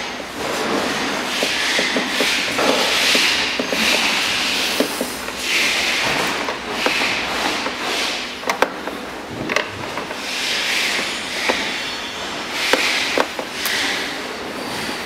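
A few sharp clicks and scrapes of a screwdriver working screws on the plastic motor gearbox of a ride-on toy buggy, over a hiss that swells and fades throughout.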